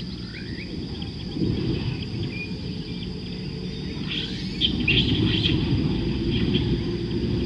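Outdoor ambience: a low rumbling noise, a steady high insect drone, and scattered bird chirps, with a burst of chirping about four to five seconds in.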